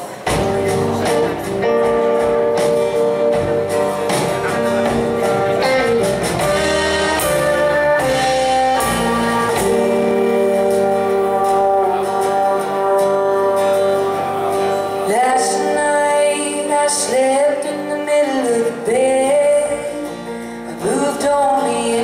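Live band playing the instrumental intro of a song: electric and acoustic guitars, electric bass and keyboard, starting abruptly. About fifteen seconds in, a lead line with sliding, bending notes comes in over the held chords.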